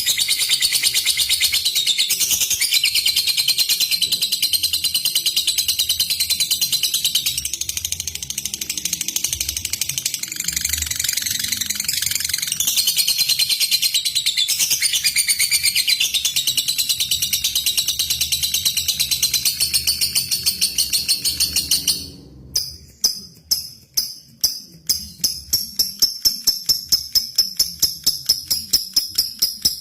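Lovebird singing a long, unbroken, high-pitched chattering trill (ngekek panjang). About three-quarters of the way through it breaks off into rapid, sharp, evenly repeated ticks (ngetik).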